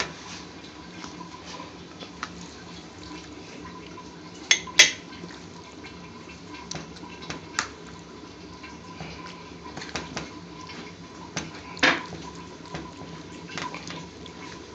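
Metal spoon clinking and scraping against ceramic plates as food is served from a bowl onto a plate, with scattered light knocks and two louder clinks about five seconds in and another near twelve seconds. A faint steady hum underneath.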